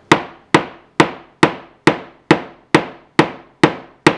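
Rubber mallet striking a metal snap-setting tool over an anvil, about ten even blows a little under half a second apart, each a sharp knock with a short ring. It is setting a new snap in leather with many light hits instead of one hard blow, so as not to bend the snap's post.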